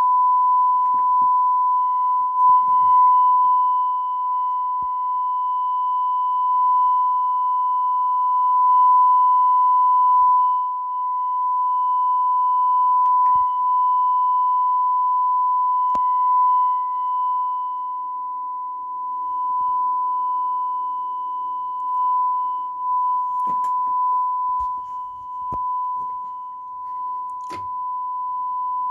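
Steady single-pitch sine-wave test tone played through a Technics SA-600 stereo receiver into a speaker during after-repair output testing, with a few faint clicks.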